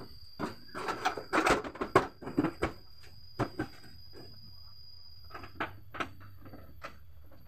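Irregular knocks, clicks and rustling as hands work at a van's front bumper, fitting it in place. The sounds come thickly for the first few seconds, then thin to a few single clicks.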